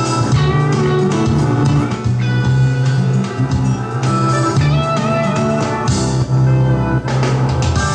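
Guitar music playing from an AM stereo car radio that is receiving a home-built AM stereo transmitter.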